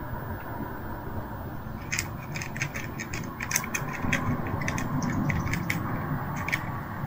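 A cat chewing fish scraps from a plastic tray. Irregular crunches and clicks come several a second from about two seconds in, over a steady low background rumble.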